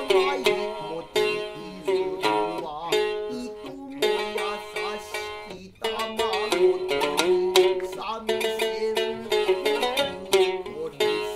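Bunraku music: a shamisen plucked in sharp, quickly fading notes, accompanying the narrator's gidayū chanting, which holds long wavering notes.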